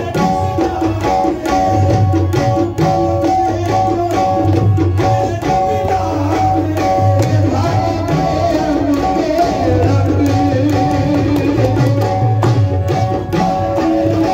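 Qawwali music: a tabla beats a driving rhythm, with deep bass strokes, under sustained harmonium notes, and the melody wavers for a few seconds in the middle.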